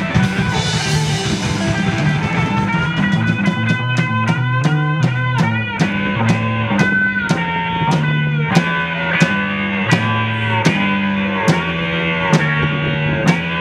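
Live rock band playing an instrumental passage: electric guitars over a moving bass guitar line, with the drum kit keeping a steady beat and a cymbal crash near the start.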